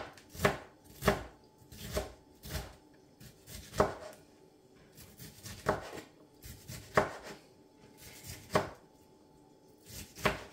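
A kitchen knife chopping bell pepper strips into small cubes on a cutting board: single sharp knocks at an uneven pace, roughly one a second, with short pauses between runs of cuts.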